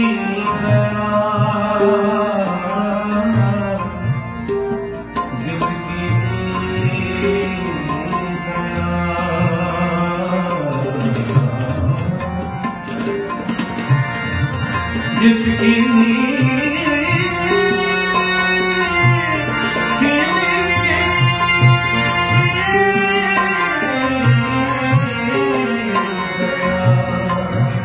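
Sikh kirtan alap: a male voice sings long, gliding melismatic phrases over a steady harmonium drone, with tabla playing beneath.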